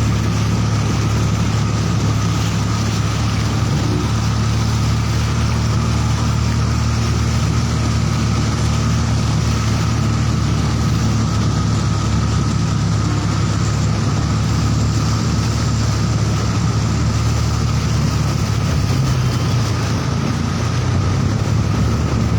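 An engine running steadily, a constant low drone with an even hum over it, heard while riding in the vehicle it drives.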